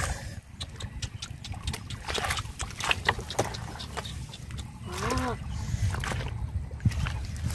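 Hands and feet splashing and sloshing in shallow muddy water, with scattered wet slaps and squelches; a short voice call about five seconds in.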